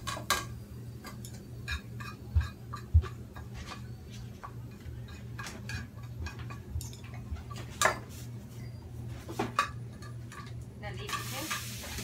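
A spoon scraping and tapping inside a frying pan, knocking freshly deep-fried garlic and its oil out into a strainer over a bowl: irregular clicks and knocks, a few of them louder.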